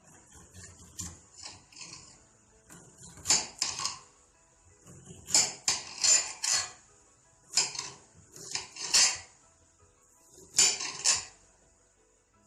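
Knife chopping onion on a cutting board: sharp strikes in quick bursts of two to four, with short pauses between bursts.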